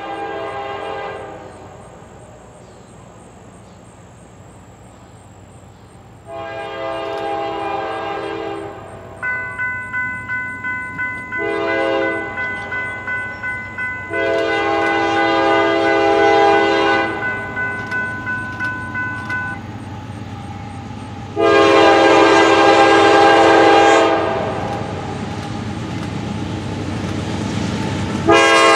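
Kansas City Southern freight locomotive's air horn sounding a run of long blasts with one short one, the long-long-short-long grade-crossing signal of an approaching train. A bell rings quickly, about three strokes a second, between blasts in the middle, and the diesel locomotives' rumble grows near the end.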